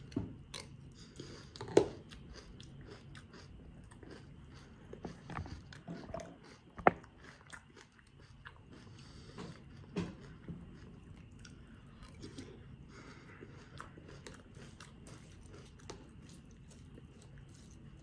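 Close-up chewing and crunching of a mouthful of fruity cereal, with many small mouth clicks and two sharp louder clicks, about two seconds and seven seconds in.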